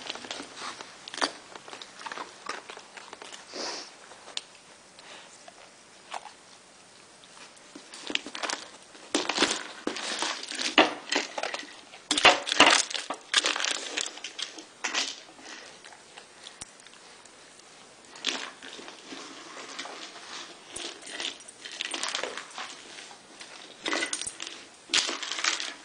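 Kong Wobbler plastic puzzle toy being nosed and rolled by a German shepherd, the kibble and treats inside rattling in irregular bursts of clicks with quieter gaps between.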